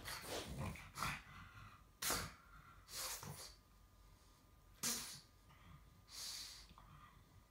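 Short, sharp, noisy puffs of breath from a pug and a Maine Coon kitten sparring at play, about six in all.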